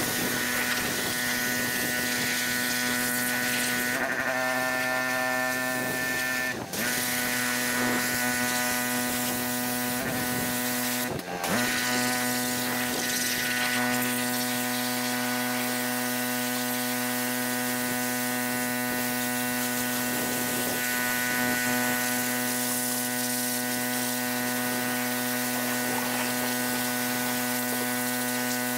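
Pressure washer running while its spray cleans the trailer tub floor: a steady hum with the hiss of the water jet, broken briefly twice.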